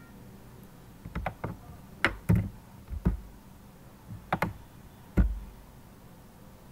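Scattered computer keyboard keystrokes and clicks, about ten in all and mostly in quick pairs, with the heaviest thump about five seconds in.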